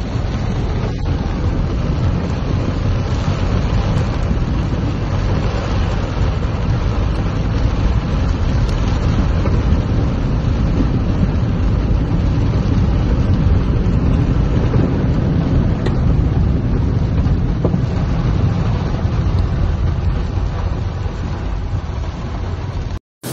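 Steady, dense noise inside a car driving through a heavy rainstorm: rain beating on the roof and windscreen over the engine and road noise. It breaks off for a moment near the end.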